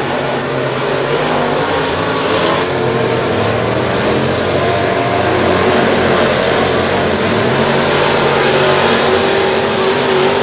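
Several crate late-model dirt track race cars running laps together, their V8 engines at racing speed. The overlapping engine notes rise and fall as the cars go through the turns.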